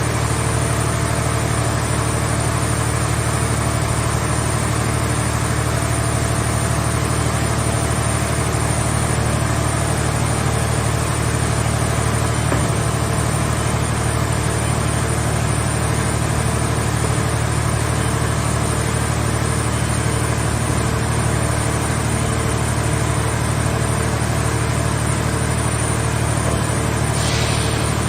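Scrap car shell baler's engine or power unit running steadily at one constant speed, a low hum that does not rise or fall. A brief faint hiss sounds near the end.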